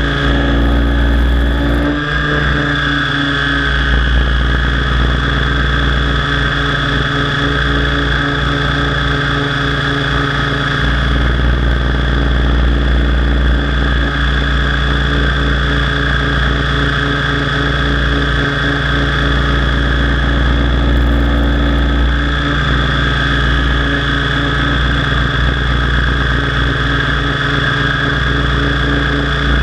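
Align T-Rex 700 DFC radio-controlled helicopter in flight: a steady drone of the rotor and drivetrain with a held high whine over a low rumble, its pitch shifting slightly now and then.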